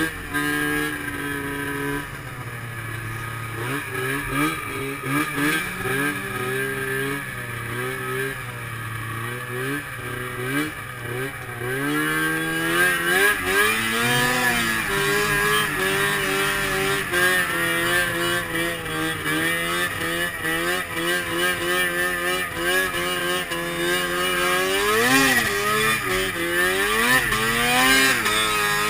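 Arctic Cat M7 snowmobile's two-stroke engine under way in snow, revving up and down again and again with the throttle. It runs louder and harder from about halfway through, with quick rising and falling revs near the end.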